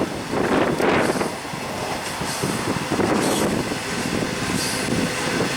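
A loaded coal train rolling past, its wheels running on the rails, with a few brief high wheel squeals.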